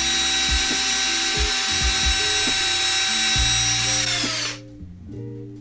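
Cordless drill motor running at full speed with a small fan blade in its chuck: a steady high whine that winds down and stops about four and a half seconds in. Background music with a steady beat plays underneath.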